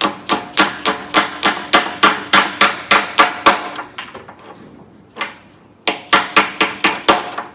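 An orange mallet tapping repeatedly on the metal pedal cluster of a 1965 VW Beetle, seating a part on the assembly. There is a quick run of about a dozen light blows, about three to four a second, then a short pause, then a second run of about seven blows near the end.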